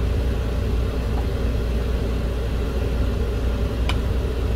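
Steady low mechanical rumble with a single short click near the end.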